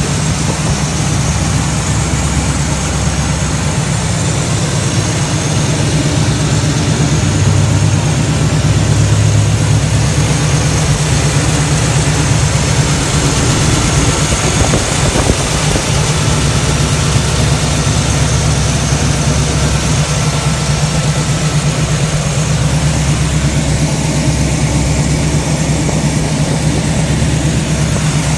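1978 Pontiac Trans Am's 6.6-litre V8 idling steadily, heard close up at the open engine bay, with a low, even rumble and no revving.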